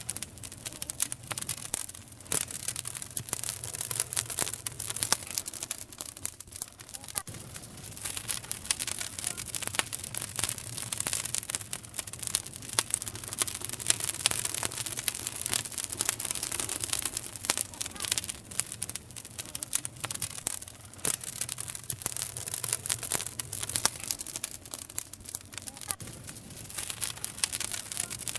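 Campfire crackling, with many irregular sharp pops and snaps over a steady hiss.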